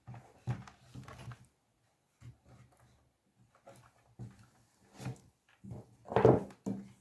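Scattered light clicks and taps of hands handling a laptop's plastic case, with a louder, short voice-like sound about six seconds in.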